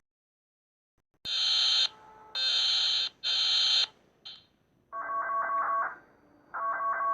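Electronic emergency-alert alarm tones: three short, high tone blasts, then a chord of several steady electronic tones, pulsing rapidly, sounding in bursts of about a second with short gaps.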